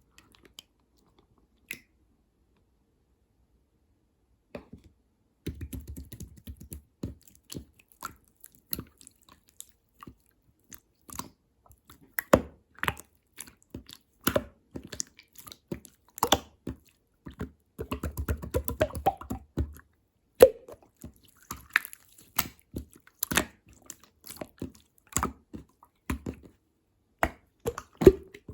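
Clear slime being squished and pressed by hand, giving a run of sticky clicks and wet pops. It starts about five seconds in, and thicker bursts of crackling come around the middle.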